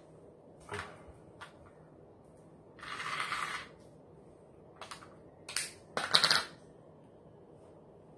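Small objects being handled: a few light clicks, a brief rustle about three seconds in, then louder sharp clattering clicks around six seconds in.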